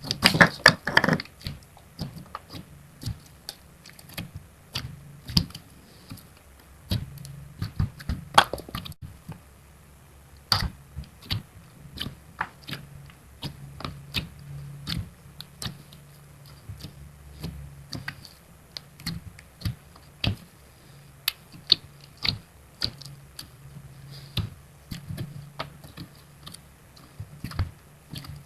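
Fingers poking and squeezing soft, sticky slime: irregular small clicks and wet pops, thickest in the first couple of seconds, over a faint low hum.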